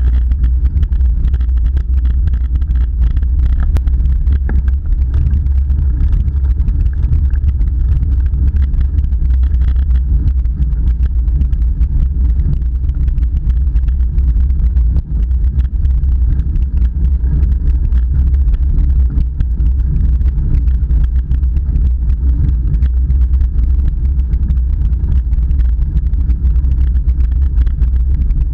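Steady, loud low rumble of wind buffeting an action camera's microphone while riding uphill.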